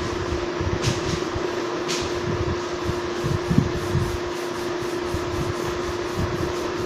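Blackboard duster wiping a chalkboard in quick, irregular strokes, with soft rubbing thumps and a couple of sharp ticks, over a steady background hum.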